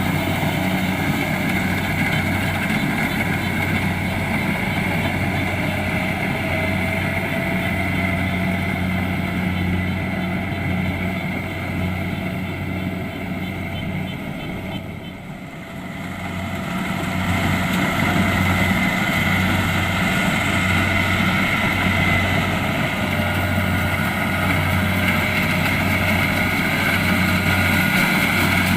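Kubota DC-70 Plus combine harvester running steadily: a diesel engine hum with a high whine above it. The sound drops briefly about halfway through, then comes back louder.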